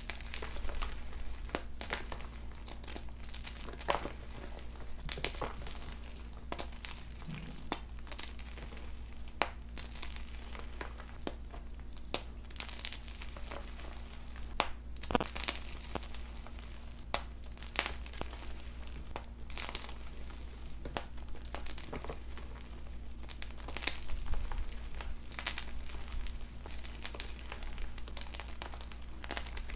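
Hands squeezing and crumbling soft blocks of fresh gym chalk into powder: irregular soft crunches and crackles throughout, over a steady low hum.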